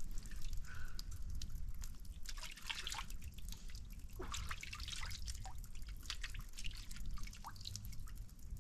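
Water dripping and trickling: irregular drops and small splashes, some with a quick rising plink.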